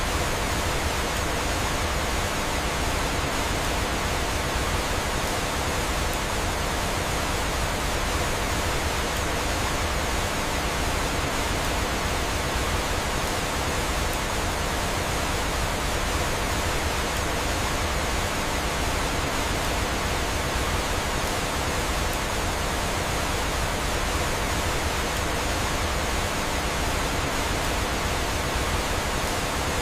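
Steady rushing of falling water, an even hiss with no breaks or changes.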